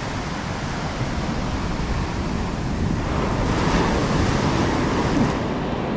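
Surf breaking and washing up the beach, with a swell of wave noise partway through, and wind buffeting the microphone.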